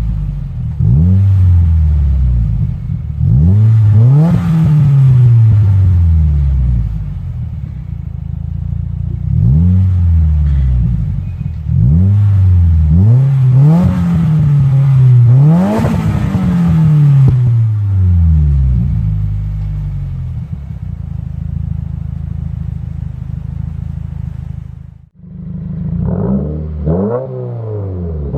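A 2015+ Subaru WRX's turbocharged 2.0-litre flat-four through an aftermarket exhaust, revved over and over, each rev rising and falling back, then settling to a steady idle. After a short break near the end, a new round of quick revs starts.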